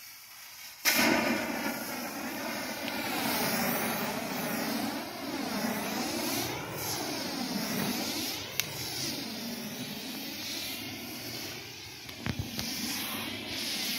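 Blue handheld pyrotechnic torch flaring into life about a second in with a sudden whoosh, then burning with a continuous loud hissing rush whose pitch wavers up and down. A sharp crackle breaks in about two-thirds through and a few more near the end.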